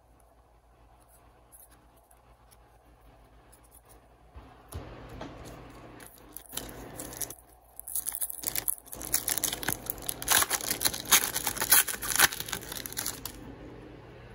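Wrapper of a hockey card pack being torn open and crinkled: faint rustling at first, then dense, loud crackling for about five seconds in the second half, stopping suddenly near the end.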